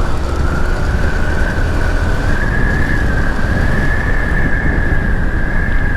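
Motorcycle riding noise picked up by a camera-mounted mic: a steady low rumble of wind and engine, with a thin high-pitched whine that holds nearly level, rising a little and dipping again toward the end.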